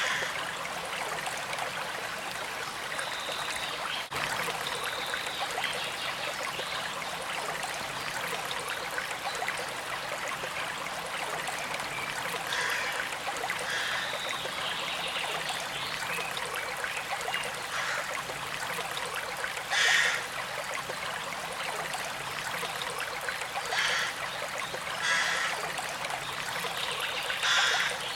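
A small stream or brook flowing and trickling, a steady rush of running water. A few short, louder sounds stand out from about halfway through to near the end.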